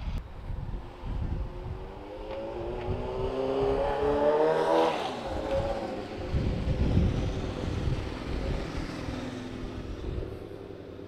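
A motor vehicle passes close by: its engine note climbs in pitch and grows louder to a peak about five seconds in, then drops in pitch and fades, over a low steady rumble.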